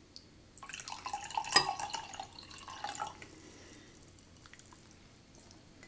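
Grape juice poured into a stemmed wine glass: a splashing pour of about two and a half seconds, with one sharp click about a second into it.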